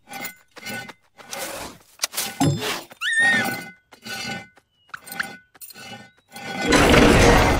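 Cartoon soundtrack of music and sound effects: a run of short, evenly spaced hits about twice a second, with a brief rising squeak about three seconds in, then a loud, sustained noisy crash near the end.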